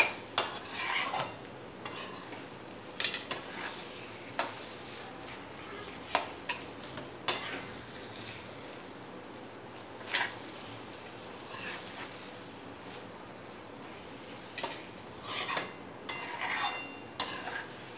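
Metal spoon stirring and scraping paneer bhurji around a metal kadai, with irregular clinks and scrapes against the pan, more of them near the end, over a faint sizzle of frying.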